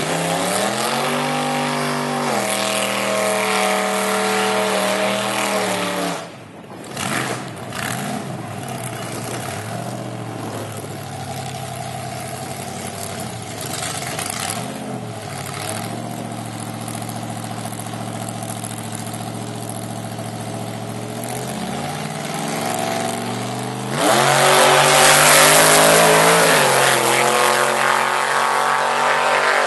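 Supercharged small-block Chevy V8 (8-71 blower) in a Ford Ranger drag truck, revved up and held at steady revs at the line, then launched at full throttle about 24 seconds in, suddenly much louder with the pitch climbing.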